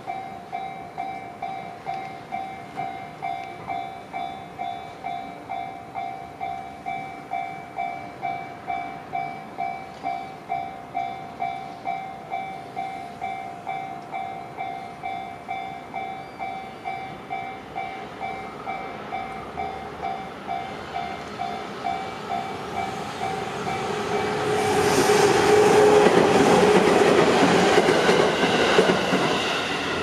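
Japanese level-crossing warning bell ringing in a steady, even rhythm of about one and a half strikes a second. From about 22 s a JR Tokaido Line train approaches and passes, and its running noise on the rails swells to become the loudest sound, drowning out the bell.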